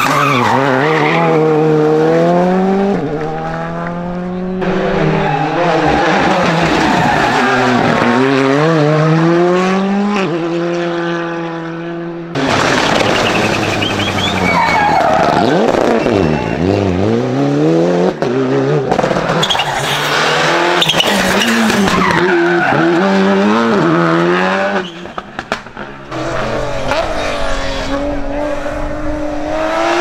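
Rally cars driven flat out, engines revving hard and dropping back again and again through gear changes, with tyres skidding. The sound jumps abruptly to a different car several times.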